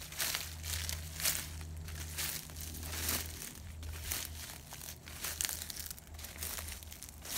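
Footsteps crunching through dry fallen leaves at a steady walking pace, about one step a second.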